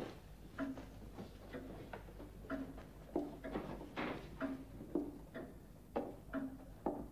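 Footsteps on a hard floor: short knocks at about two steps a second.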